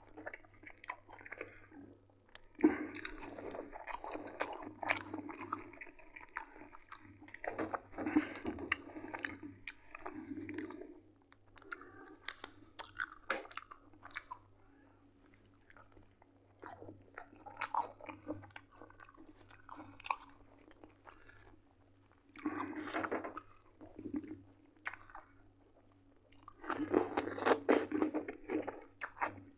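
Close-up eating sounds: irregular chewing and biting of oven-baked chicken drumsticks. Near the end comes the loudest stretch, a run of crunching as a fresh cucumber is bitten and chewed.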